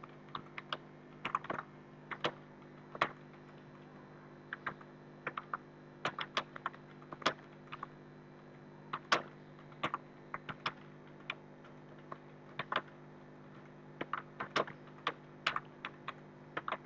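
Typing on a computer keyboard: quick irregular runs of keystrokes with brief pauses between them, over a faint steady low hum.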